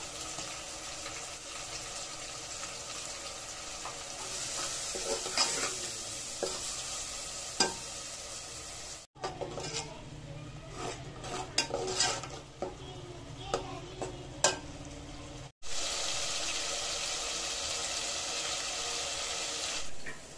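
Onion-tomato masala sizzling as it fries in an aluminium pot while a steel spoon stirs and scrapes it. In the middle stretch the spoon knocks and clinks sharply against the pot several times.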